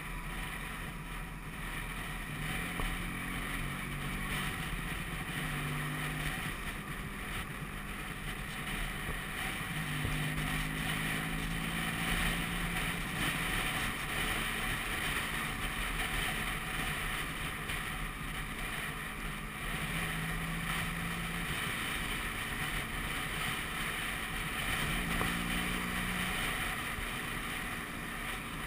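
Vespa PX scooter's two-stroke single-cylinder engine running on the move, under steady wind and road noise, its low engine note coming and going and shifting pitch every few seconds with the throttle.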